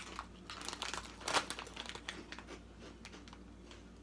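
Crinkly snack bag rustling and crackling as a hand digs into it for chili-and-lemon rings. The crackling is loudest about a second in and thins out to a few light rustles.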